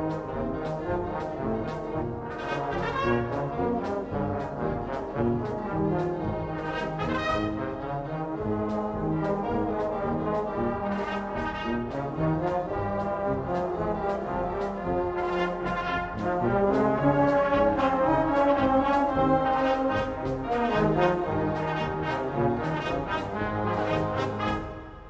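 Maltese wind band playing a lively festa march (marċ brijuż), with the brass leading over steady drum beats. The music drops away sharply just before the end.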